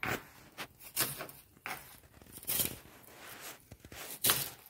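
Kitchen knife cutting small onions on a plastic cutting board: several uneven slicing strokes, each a short crunch with a tap of the blade on the board, the loudest about four seconds in.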